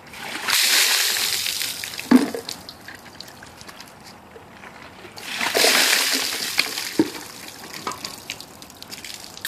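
Ice water dumped from a bucket over a person's head twice, about half a second in and again about five seconds in. Each pour is a loud rush of splashing water that tails off into dripping, with a short sharp knock after each.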